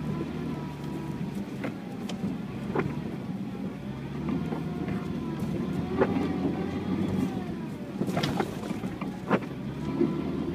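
UAZ Patriot driving off-road: the engine drones steadily under load with a thin wavering whine. Sharp knocks and clunks from the body and suspension come every second or two, the loudest near the end.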